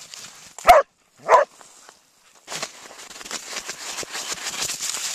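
Avalanche rescue dog barking twice in quick succession, then a few seconds of steady scratching, rustling noise that grows louder.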